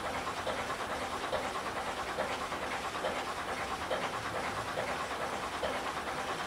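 Small steam tank locomotive working along the line, its exhaust chuffing in a steady rhythm.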